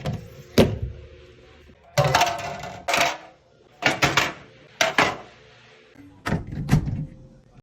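Hard objects knocked, clinked and set down one after another, with a longer clatter about two seconds in: containers and parts being handled while a refrigerator is cleaned.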